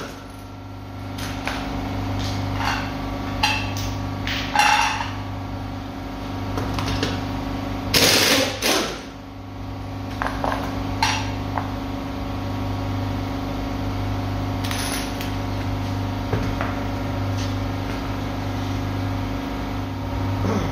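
Pneumatic impact wrench rattling out the wheel bolts in a burst of about a second, roughly eight seconds in, with scattered metallic clinks and knocks from the tools and bolts. A steady low hum runs underneath.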